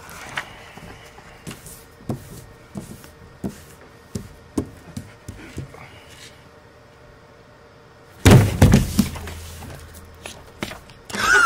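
Scattered light taps and clicks in a quiet room, then a sudden loud thump and clatter about eight seconds in. A brief high-pitched squeal comes at the very end.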